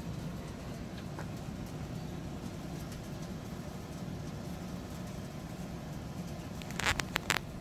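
Old fireplace blower fan running with a steady low hum, feeding air to the offset smoker's firebox under a DIY heat controller. A few sharp clicks or knocks come in quick succession near the end.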